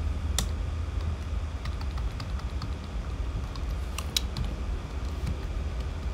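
Scattered computer keyboard key clicks as a spreadsheet formula is typed and entered, the strongest about half a second in and twice around four seconds in, over a steady low hum.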